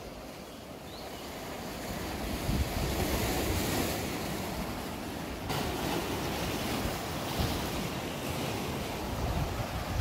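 Sea waves washing and breaking over a rocky shore, with wind rumbling on the microphone. The sound shifts abruptly about halfway through.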